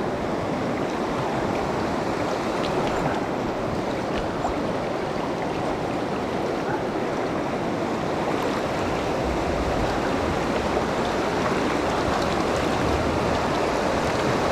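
A river's current running steadily, an even rushing of water with no break.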